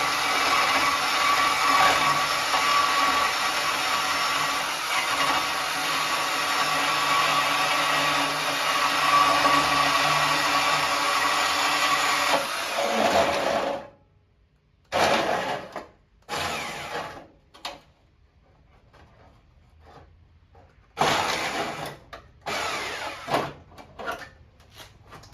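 A handheld power tool running steadily, then spinning down with a falling whine about 13 seconds in. It is then triggered again in several short bursts with pauses between them.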